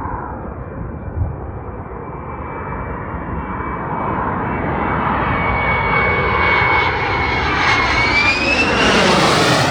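Fighter jet on approach to the runway, its engine whine growing steadily louder as it nears; about eight seconds in, the high whine rises in pitch and the jet noise swells as it passes close.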